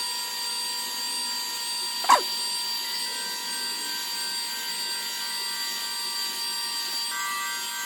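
Heat gun running steadily, its fan motor whining over a rush of air, with one sharp click about two seconds in.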